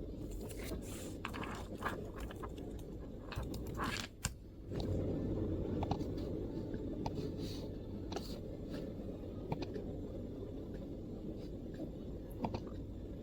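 MacBook keyboard being typed on: irregular, scattered keystroke clicks over a steady low background rumble.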